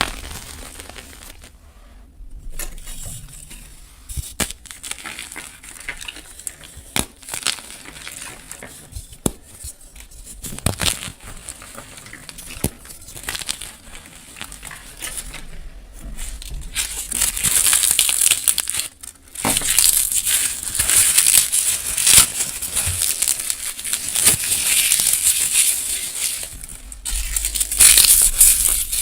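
Gym chalk and crisp dried flowers crushed by hand close to the microphone. There are scattered separate crackles at first, then a denser, continuous gritty crunching over the last ten seconds or so.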